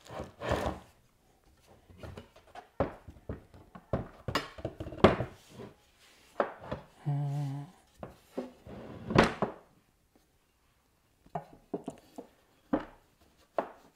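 Workshop handling sounds: irregular knocks, clicks and clatters of parts being handled and set down on a wooden workbench, with a brief steady hum about seven seconds in.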